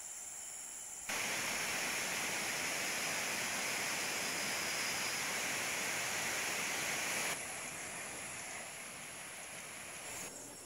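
Steady rush of flowing water, a stream or small waterfall, that cuts in abruptly about a second in and cuts off just as abruptly about seven seconds in.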